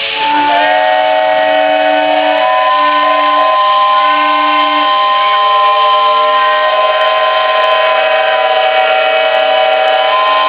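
Many steam whistles blowing at once, sounding noon: several steady tones at different pitches start together just after the beginning and are held, overlapping in a loud chord, some stopping and starting again.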